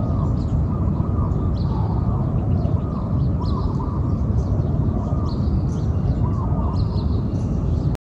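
Spotted dove cooing: short rounded coo notes, repeated again and again, over a steady low rumble, with faint chirps from small birds above it.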